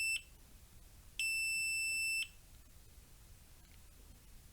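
Multimeter continuity beeper giving steady, high electronic beeps of about a second each: one ends just as the clip starts and another sounds about a second in. The meter is reading low resistance across the board, which he puts down to resistors across the part or leftover charge in the capacitors.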